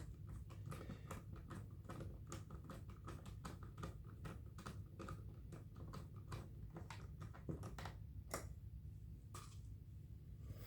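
Faint, rapid small clicks and taps of plastic parts being handled and fitted as the power cord holder goes onto the vacuum's plastic housing, thinning out after about seven seconds, with a few louder taps near the end.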